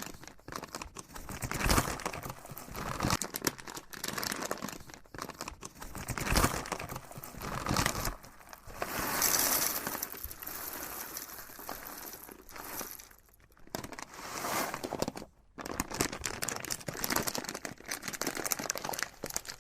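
Packaging being handled: irregular crinkling and crumpling, with some tearing, and brief pauses twice near the end.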